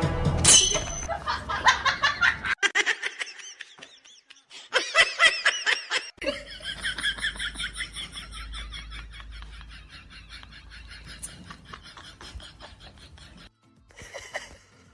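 High-pitched laughter in rapid repeated bursts, broken by sudden cuts between short clips.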